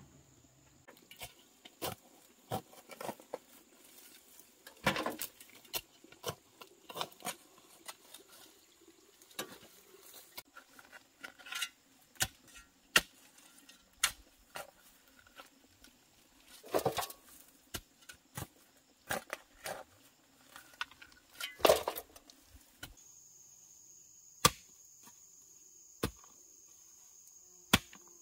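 Scattered, irregular knocks and taps, some much louder than others, over a steady high-pitched insect drone; the drone shifts slightly lower about two-thirds of the way through.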